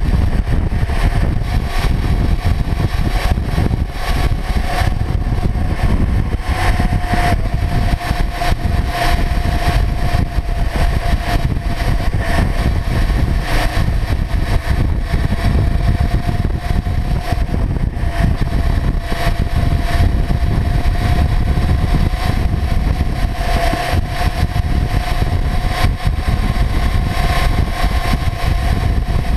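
Kawasaki Ninja 400's parallel-twin engine running at a steady cruise on the move, its note rising a little about seven seconds in and then holding. A heavy low rumble of wind and road noise runs under it.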